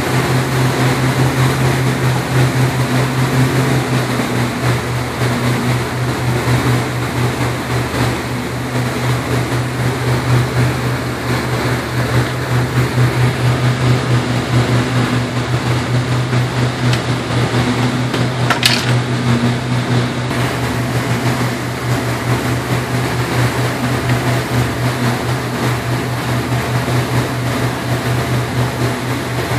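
Fishing boat's engine running steadily at cruising speed, a low even drone, over a rushing of wind and wake water. A brief high squeak about two-thirds of the way through.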